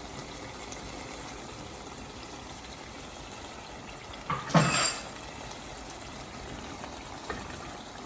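Tomato stew bubbling and sizzling steadily in a pot on high heat. About four and a half seconds in there is one brief, louder clatter or scrape.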